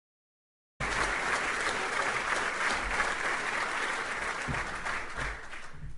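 Audience applauding. It cuts in sharply under a second in and dies away near the end.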